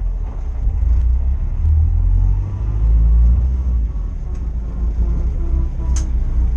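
Steady low rumble of a running vehicle, with a single sharp click about six seconds in.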